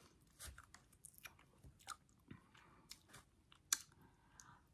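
Faint chewing and small wet mouth clicks of a person eating cotton candy, with one sharper click a little before the end.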